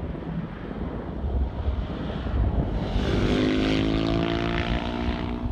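Wind rumbling on the microphone, then about three seconds in a motor's hum comes up and holds, rising slightly in pitch.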